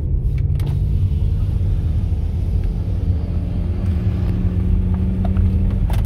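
BMW S65 4.0-litre V8 with an Eisenmann cat-back exhaust, heard from inside the cabin, pulling in first gear with its pitch slowly rising, then upshifting to second through the DCT gearbox near the end.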